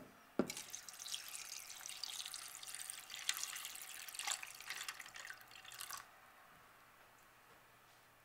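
Cold water poured from a glass measuring jug into a glass baking dish over bamboo skewers, splashing and trickling. The pour starts about half a second in and stops about six seconds in.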